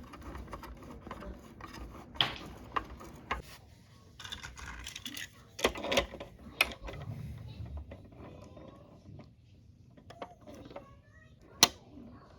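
Wooden BRIO toy railway pieces clicking and knocking as they are handled: a string of irregular clicks and clacks, with one sharper knock near the end.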